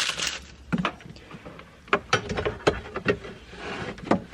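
Parts and tools being handled during a car stereo install: a series of about six sharp clicks and knocks at uneven intervals.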